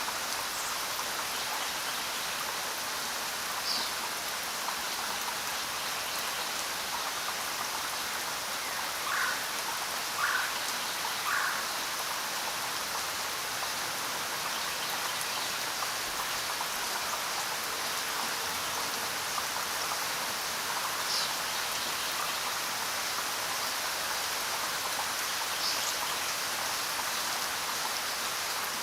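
Steady rain falling, an even hiss of drops, with a few short faint calls over it, three in a row about a second apart near the middle.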